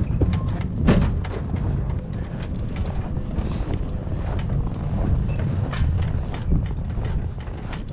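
Truck and loaded cattle trailer running, with a low rumble and irregular knocks and clatter from the trailer.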